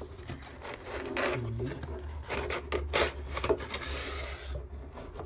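Box packaging being worked open by hand: irregular rubbing and scraping as the box part is slid and pulled out, with scattered clicks and knocks, loudest about two to four seconds in.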